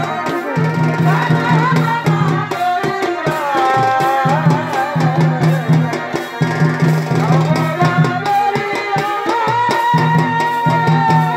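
Live Purulia Chhau folk music: barrel drums beating a dense, fast rhythm under a high, wavering melody line that bends and slides between held notes.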